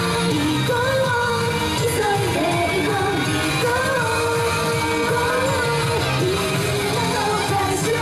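Japanese idol pop group singing live in unison over loud pop accompaniment, the melody moving steadily without a break.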